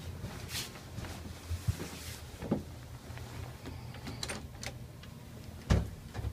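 Irregular crunches and rustles of walking through deep snow, over a low rumble of wind buffeting the microphone. A sharp thump near the end is the loudest sound.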